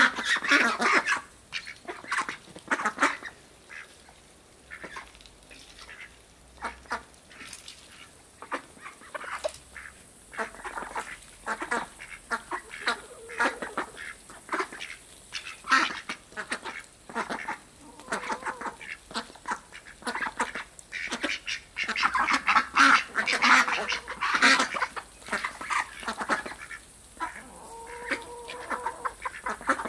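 Indian Runner ducks quacking in short, irregular bursts as they feed on scattered grain, with louder clusters at the start and again about three-quarters of the way through.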